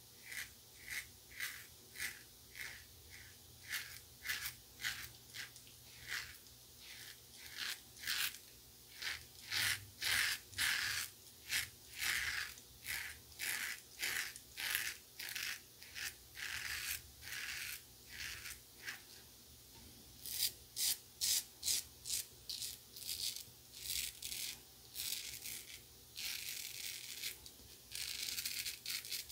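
Pearl Flexi double-edge safety razor with a Gillette Winner Stainless blade cutting two days' lathered stubble on the neck and jaw. Short rasping strokes in quick succession, about two a second, with a few longer strokes near the end.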